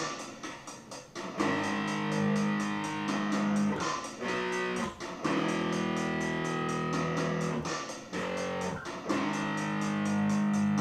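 Electric bass guitar played through an amplifier: long ringing notes held a couple of seconds each, broken off briefly about four and eight seconds in, over a faint steady fast ticking beat.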